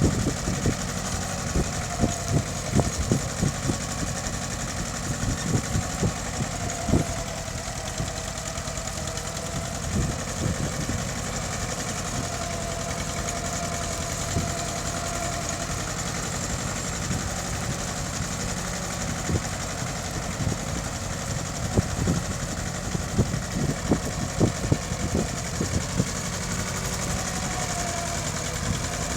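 Mitsubishi tractor engine running steadily under ploughing load, with irregular low thumps and knocks coming and going over it, clustered in the first several seconds and again near the end.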